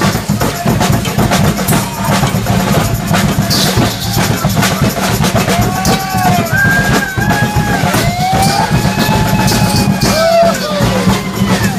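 Live street brass band playing: sousaphones holding a low bass line under a steady beat of bass drums and a snare drum. Arching tones that rise and fall in pitch come in during the second half.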